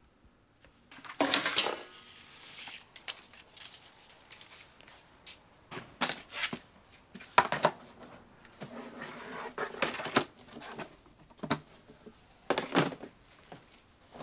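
Metal 35 mm film cans being handled and pulled from a stack: a series of clunks, scrapes and clatters, about half a dozen, with short quiet gaps between.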